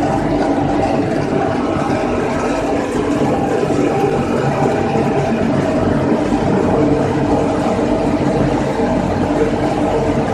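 Wood pellet production machinery running: a pellet mill with screw and belt conveyors giving a steady mechanical hum and whir with several held tones.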